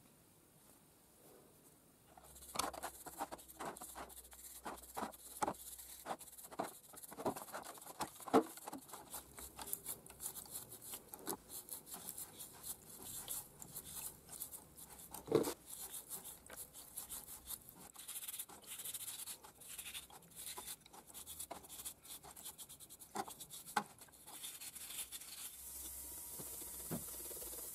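Metal lathe chuck jaws being handled and scrubbed with a brush in liquid, heard as a long string of irregular clicks, clinks and scrapes starting about two seconds in. Near the end, a screwdriver works on the steel chuck body.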